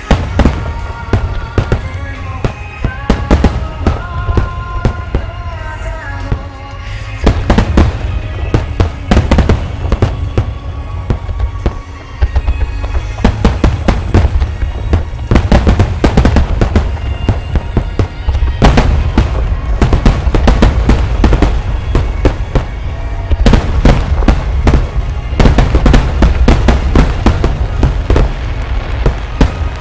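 Fireworks display: aerial shells bursting in a rapid barrage of sharp bangs over a deep rumble, with music playing. The bursts are few at first and come thick and fast from about seven seconds in, easing briefly near the middle.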